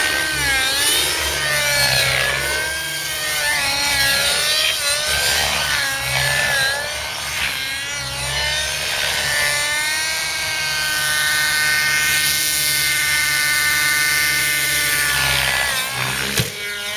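Nitro RC helicopter (Velocity 50) running hard: its two-stroke glow engine and rotor head make a high, buzzing whine whose pitch swoops up and down through the first ten seconds as it is thrown around, then holds steady for several seconds.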